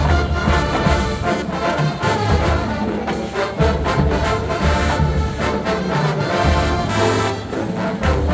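College marching band playing loud: full brass section sounding chords over drumline hits and deep bass pulses.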